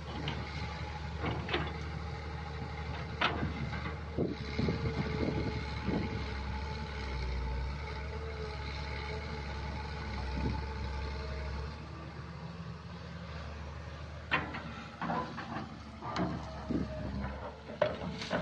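Crawler excavator's diesel engine running steadily, with a faint steady whine over it, as the bucket digs into and lifts heaps of dead vegetation. Scattered sharp cracks and knocks come from the bucket and debris, clustering in the last few seconds.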